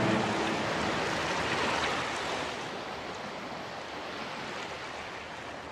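Steady rushing sea ambience, like waves or surf, slowly fading away.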